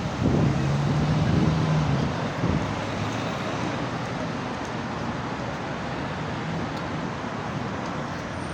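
Street traffic noise: a vehicle engine hums close by for the first two seconds or so, then fades into a steady wash of road traffic.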